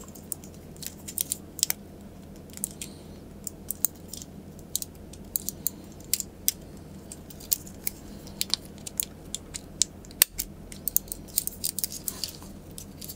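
Crisp, irregular clicks, a few a second, from a computer mouse's newly fitted Huano blue-shell blue-dot micro switches being pressed by hand.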